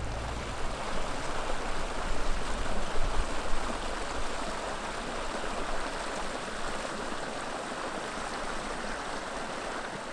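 Shallow creek water rushing steadily over a small cascade of rocks.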